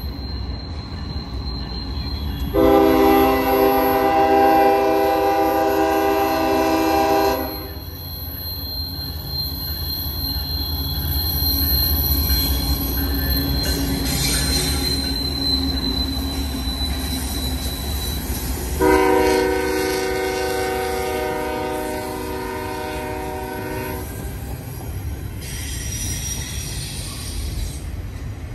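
Norfolk Southern GE ES40DC diesel locomotive passing. Its multi-tone air horn gives two long blasts of about five seconds each, the first starting about two and a half seconds in and the second about nineteen seconds in. Under the horn runs the steady rumble of the train, with a thin high squeal of wheel flanges grinding against the rail on the tight curve.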